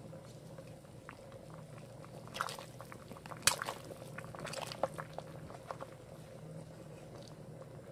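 Pot of chicken and ginseng rice porridge (lugaw) boiling, nearly cooked: bubbling broth with scattered pops and clicks, the sharpest click about three and a half seconds in, over a steady low hum.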